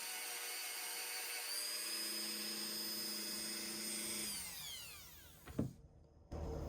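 Dremel rotary tool fitted with a wire brush, running with a steady high whine that steps up in pitch about a second and a half in. About four seconds in it is switched off and winds down with a falling whine, followed by a single sharp click.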